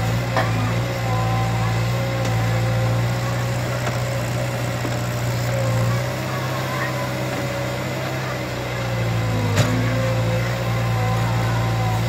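Kobelco SK03 crawler excavator's diesel engine running steadily while the arm and bucket work the dirt, with a wavering whine above the engine hum. A sharp knock comes about ten seconds in.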